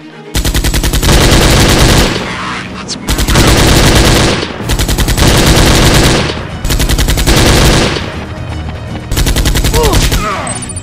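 Automatic rifle fire sound effect in five bursts of rapid, evenly spaced shots, each burst about one to two seconds long with short gaps between them.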